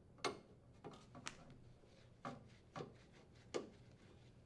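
Phillips screwdriver unthreading a screw from the sheet-metal access cover of a control box: about six faint clicks, spaced irregularly, as the tool turns.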